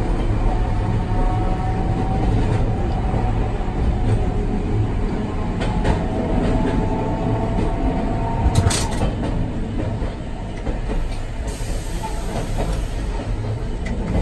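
Tram running along street track, heard from inside its cab: a steady low rumble of wheels on rail with a faint motor whine that drifts in pitch. There are a couple of sharp clacks, about six and nine seconds in.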